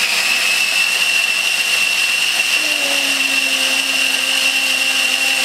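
Small electric food processor running steadily with a high motor whine, grinding chickpeas into hummus.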